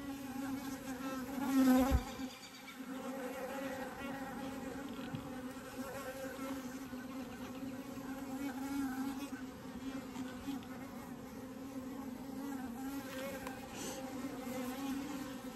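Honeybee colony buzzing steadily in an open hive, a continuous low hum; the beekeeper takes the loud buzz to be the many drones, not an angry colony. A louder swell of buzzing ends in a short thump about two seconds in.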